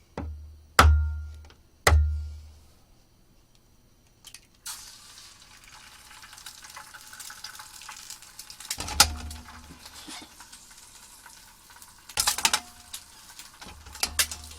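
An egg knocked three times against the edge of a small frying pan to crack it, then sizzling in the hot pan from about five seconds in, with a few more clacks of the pan or shell.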